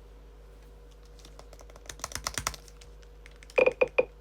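Computer keyboard typing: a quick run of keystrokes about two seconds in, then three short, loud pitched beeps in quick succession near the end.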